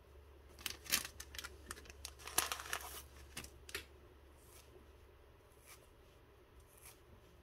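Fly-tying materials being handled at the bench: a run of short crinkles and rustles, busiest between about one and three seconds in, then a few faint ticks.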